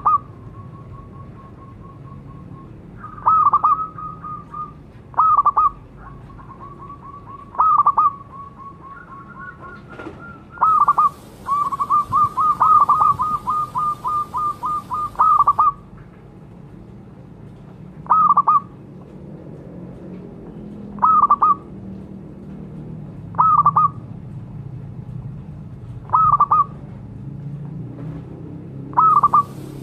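Zebra dove (perkutut) cooing: short ringing coo notes, with softer trills between them in the first few seconds. There is a rapid run of about fifteen notes in the middle, and after it single coos every two to three seconds.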